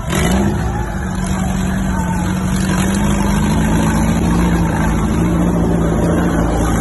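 Lifted off-road Volkswagen Beetle's engine revving up sharply at the start, then held steadily at high revs as the big tyres churn through mud and water.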